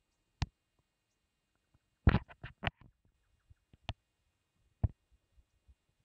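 A few short, sharp knocks and clicks: one about half a second in, a quick cluster of four or five just after two seconds, then two more single knocks.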